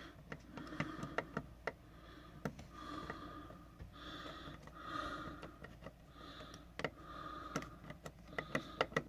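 Small parts being handled and pressed into a dryer's control panel: scattered light clicks and short scraping or rustling sounds, then a quick, even run of clicks near the end.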